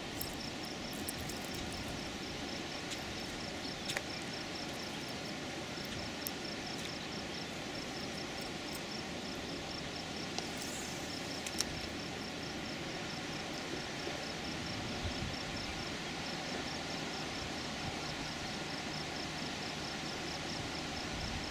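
Steady outdoor background hiss with an insect chirping in a fast, even run of high-pitched pulses that pauses now and then. There are a few faint clicks.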